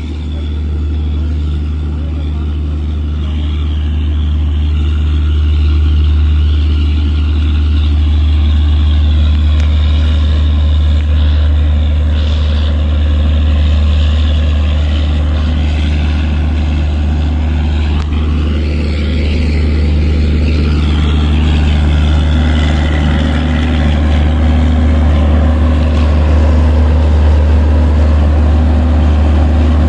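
Diesel generator set in an LHB power car running with a steady, loud low drone. It grows louder over the first few seconds as the car comes close, then holds steady.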